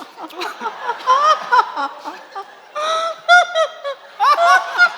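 A woman making wordless vocal sound effects in place of a ghost's speech: high, sliding, warbling voice sounds in several short bursts, with a longer, pulsing one about three seconds in.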